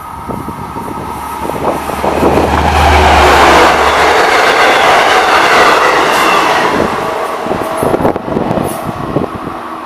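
Long Island Rail Road diesel locomotive and bilevel passenger coaches passing at speed. A low engine hum builds as the locomotive goes by about three seconds in, then the rush of wheels and coaches follows and slowly fades as the train draws away.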